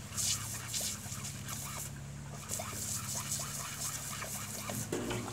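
Dog snapping and lapping at a garden hose's water stream: spray hiss and splashing with small wet mouth clicks throughout. A low pitched sound starts just before the end.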